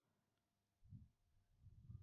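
Near silence: room tone, with two faint low rumbles, one about a second in and one near the end.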